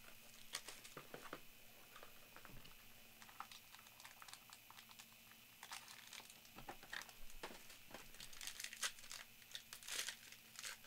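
Faint crinkling and rustling of plastic shrink-wrap as a trading-card box is unwrapped and opened, then a foil card pack being pulled open. The crackling grows busier near the end.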